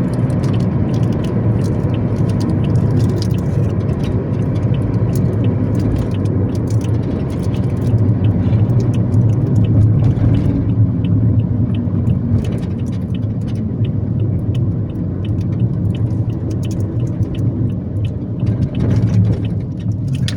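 A vehicle engine rumbling steadily on the move, low and loud, with road noise and scattered light clicks over it.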